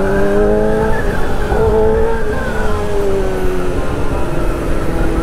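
A sport motorcycle's engine revving high under way, with a whining pitch. The pitch climbs, jumps higher about a second and a half in, then falls slowly as the throttle eases, over low rumbling wind and road noise.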